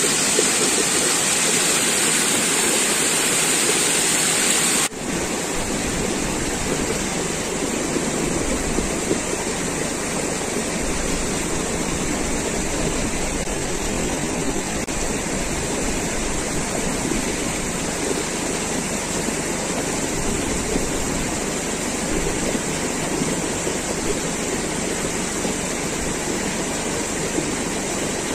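Swollen, muddy stream rushing over rock ledges: a steady, loud water rush. About five seconds in the sound changes abruptly, losing some hiss and gaining a low rumble.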